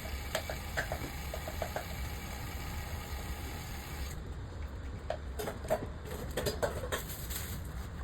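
A steady low hum with scattered light clicks and taps, which come thickest between about five and seven seconds in.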